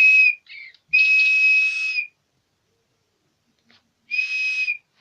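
Digibirds toy bird whistling a song through its small speaker: long, steady, high notes held for about a second each, with a brief lower note between the first two and a shorter note near the end after a pause.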